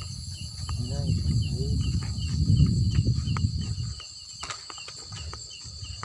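Insects, crickets or the like, keep up a steady high-pitched chirring, with scattered small clicks. A louder low rumble runs from about a second in to about four seconds in.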